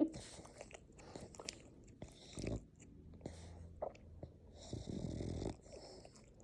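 A French bulldog breathing noisily while awake, a snore-like rattle typical of the breed's short muzzle. Two breaths stand out as louder, about two and a half and five seconds in, with small clicks between.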